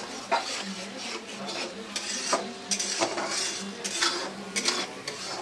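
Metal spatula scraping and clinking against a steel kadai while stirring fish curry, a string of sharp, irregular clinks.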